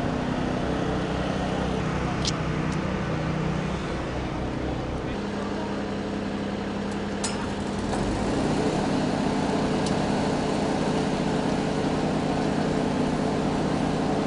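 Portable generator engines running with a steady drone; the pitch shifts about five seconds in and the sound grows louder about eight seconds in. A couple of sharp metallic clicks fall about two and seven seconds in.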